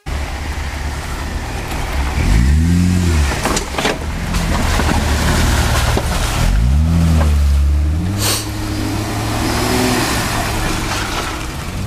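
Jeep Wrangler engine revving in two rising-and-falling surges as it crawls up a dirt and rock ledge, then running more steadily, with a few sharp knocks along the way.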